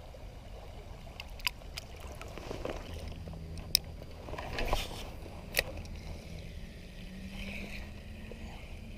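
Spinning reel being worked: a few sharp clicks, then a low steady whir of the reel being cranked in from about three seconds in.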